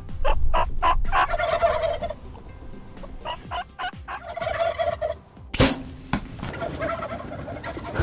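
Rio Grande wild turkey gobblers gobbling: two full, rattling gobbles and a weaker one near the end. A single sharp knock sounds about two-thirds of the way through.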